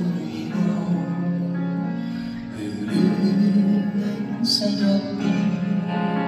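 Live band music: an instrumental passage of steady sustained chords without singing.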